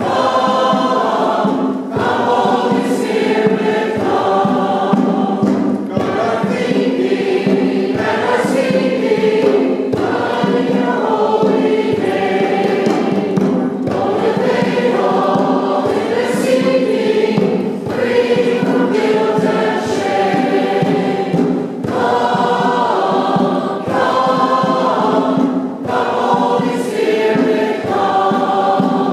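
Church choir of mixed men's and women's voices singing, in sustained phrases with a short breath about every four seconds.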